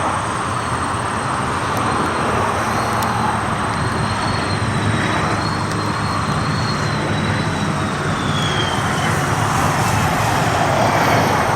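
Jet aircraft engine noise, a steady rush with a faint high whine that wavers and then falls in pitch past the middle. It grows slightly louder near the end.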